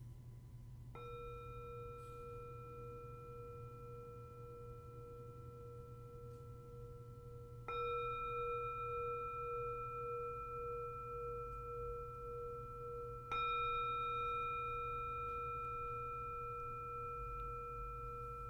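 A singing bowl struck three times, about six seconds apart, each strike ringing on with a steady low tone and several higher overtones, the low tone wobbling after the second strike. This marks the end of the silent meditation.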